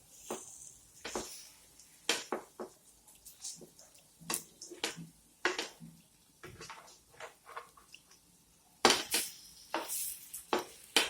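A utensil clinking and knocking against a frying pan in a string of irregular strikes, with a louder cluster about nine seconds in, as an egg-dipped sandwich is pressed down and turned while it fries.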